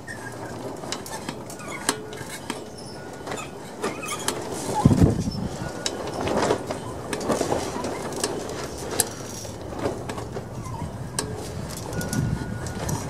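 Briggs & Stratton small engine's flywheel being turned and rocked by hand, with scattered light metallic clicks and a heavier low rush of noise about five seconds in.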